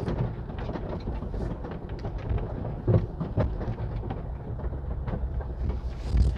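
Inside-cabin rumble of a 2021 Ford Bronco driving fast down a bumpy dirt trail, with knocks and rattles as it takes the bumps; a sharper jolt about three seconds in and another near the end.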